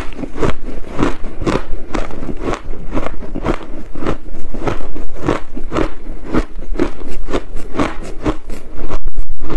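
Close-miked crunching of coloured crushed ice being bitten and chewed, a rapid run of sharp crunches about three or four a second.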